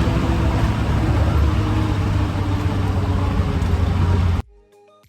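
Steady low rumble and road noise of a vehicle being driven. Near the end it cuts off suddenly to quiet background music with marimba-like notes.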